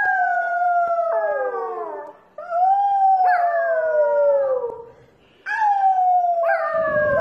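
Corgi puppy howling: long, high howls that each slide down in pitch, one after another, with short breaks about two and five seconds in.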